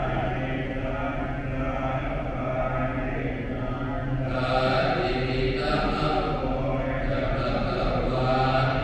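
Buddhist monks chanting together in a low, steady monotone.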